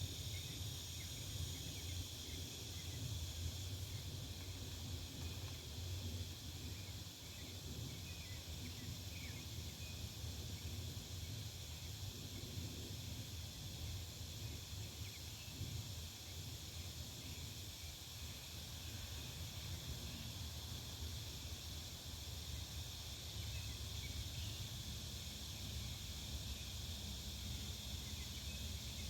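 Backyard ambience: a steady high chirring of insects over a low rumble, with a few faint bird chirps.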